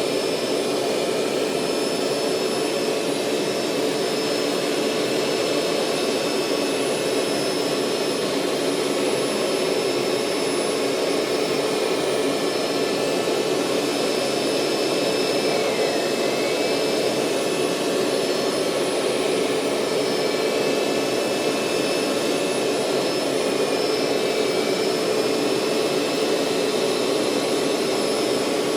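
Hoover SteamVac SpinScrub 50 carpet cleaner running steadily, its suction motor giving a constant drone with a high whine, as it extracts water and soap residue from the carpet.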